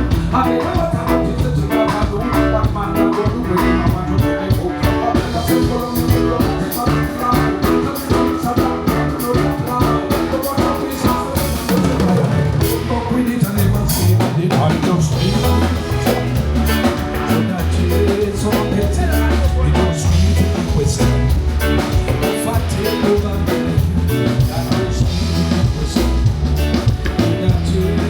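Band music with drum kit, guitar and bass keeping a steady beat, played over a sound system during a sound check.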